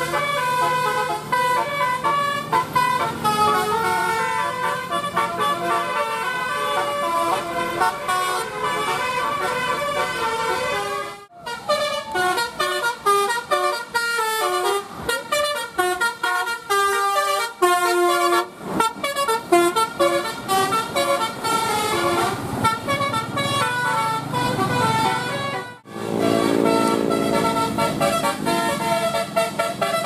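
Bus telolet horns, multi-tone air horns driven by a DAV module, playing fast melodic tunes note after note, with the buses' engines running beneath. The horns break off briefly twice, about 11 and 26 seconds in.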